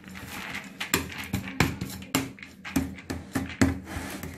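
A spoon stirring dry puffed-rice bhel puri in a plastic tub: crunchy rustling scrapes with a quick, uneven run of sharp knocks as the spoon strikes the tub, over a steady low hum.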